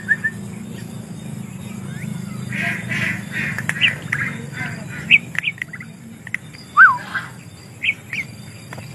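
White-rumped shama calling: short, sharp whistled notes scattered through, a harsh chattering run about two and a half to four seconds in, and one falling whistle about seven seconds in.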